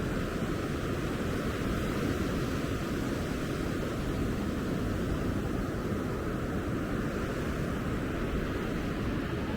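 Steady rushing of ocean surf breaking on the beach.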